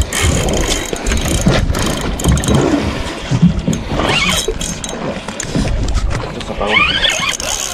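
Spinning reel being cranked as a hooked fish is reeled in, under a heavy, uneven rumble of wind on the microphone. Short rising-and-falling squeals come about four and seven seconds in.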